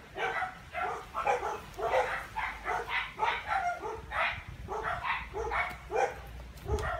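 Dog barking repeatedly in a rapid run of short barks, two or three a second.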